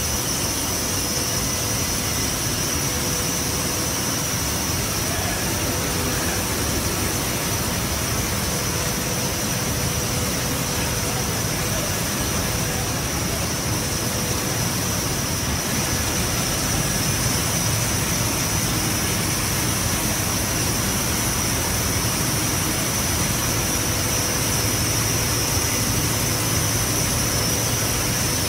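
Steady din of a running rice-mill paddy cooker plant with steam venting: a constant high hiss over a low rumble, with a faint steady hum.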